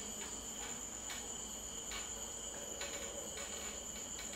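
Crickets: a steady, faint, high-pitched trill with short chirps over it at irregular intervals.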